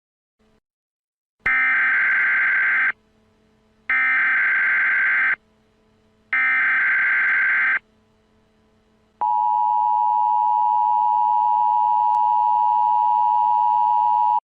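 Emergency Alert System tones: three identical bursts of digital SAME header data, each about a second and a half long, with short gaps between them. About nine seconds in, the steady two-tone EAS attention signal begins and holds.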